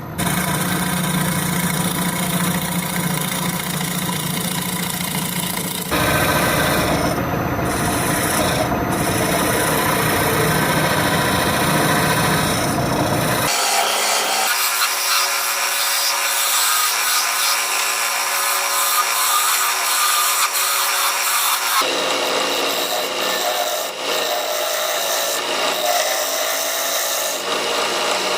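Turning tool cutting the face of a spinning swamp white oak blank on a Powermatic 90 wood lathe: a continuous rasping scrape of the cut, with a steady hum beneath. The sound changes abruptly several times.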